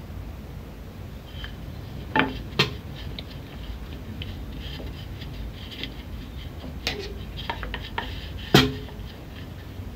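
Dough being rolled out with a wooden rolling pin on a kitchen counter: small clicks and taps, with a few sharp knocks of the pin and knife against the countertop, the loudest near the end.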